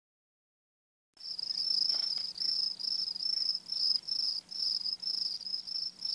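Crickets chirping as an added sound effect: a high-pitched chirring that pulses about twice a second. It starts abruptly about a second in and cuts off suddenly, with dead silence around it.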